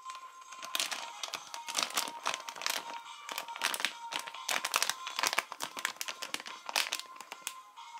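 Foil blind-bag wrapper crinkling in the hands as it is held and turned over, in quick irregular crackles from about a second in until shortly before the end.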